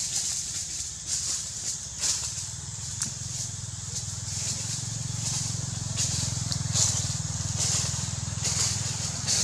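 A steady low engine-like drone, with a high hiss above it and a few short faint crackles.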